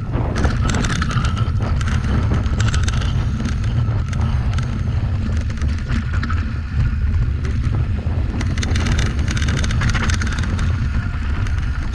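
Wind buffeting the microphone of a camera on a mountain bike descending a dirt trail, with the tyres rolling over dirt and loose rock and the bike rattling and clicking over bumps.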